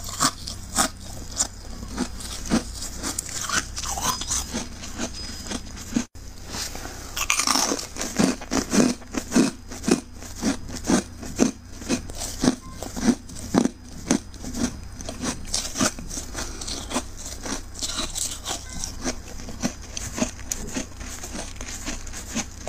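Close-up crunching of frosty freezer ice being bitten and chewed, a run of sharp crunches that settles into a steady chewing rhythm of about two a second through the middle.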